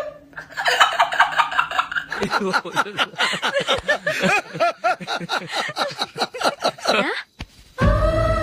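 Hearty laughter in rapid, repeated bursts, first a woman's and then a man's. After a brief break near the end, music with a strong low bass starts.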